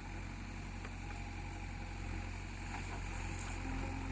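JCB backhoe loader's diesel engine running steadily with a low, even hum.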